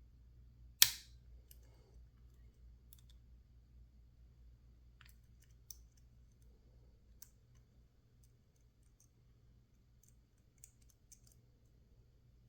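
Lock picks working in a PacLock 410 Pro padlock: scattered faint metallic clicks and ticks, with one sharp, loud click about a second in.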